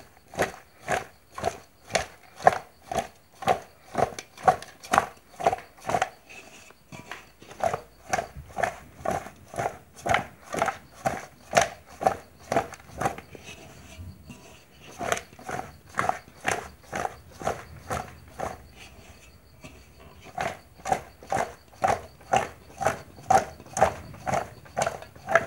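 Bottle gourd pieces coated in mustard oil and spices tossed in an aluminium pot, the pot shaken by hand in rhythmic strokes about twice a second, pausing briefly a few times, to mix a lauki pickle.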